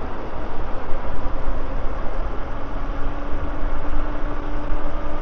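Wind buffeting the camera microphone and road noise from a moving e-bike, a steady low rumble. A faint whine slowly rises in pitch from about a second and a half in.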